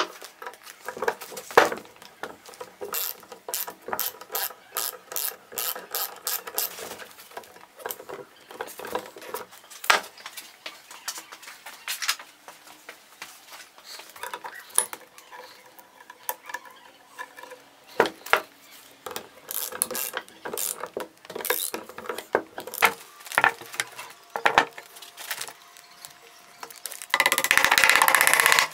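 Scattered metallic clicks and clinks, some in quick runs, from the Hi-Lift jack's mechanism being fitted together and worked by hand during reassembly. Near the end a louder, continuous scraping noise lasts about a second and a half.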